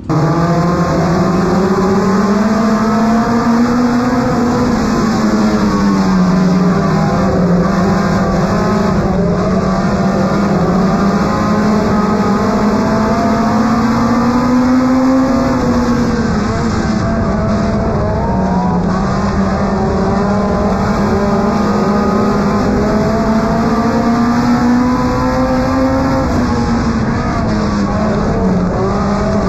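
Compact race car's engine heard from inside the cockpit while racing on a dirt oval. The engine note climbs and falls in long swells, peaking about every eleven seconds as it rounds the track lap after lap.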